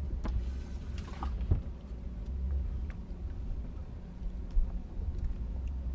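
Wind rumbling on the microphone on an open boat, with a few light knocks and one sharper thump a little over four seconds in, and a short hiss about a second in, as someone moves about the boat deck.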